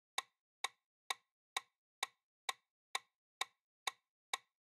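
Quiz countdown-timer ticking sound effect: ten short, evenly spaced clock-like ticks, a little over two a second, counting down the time left to answer.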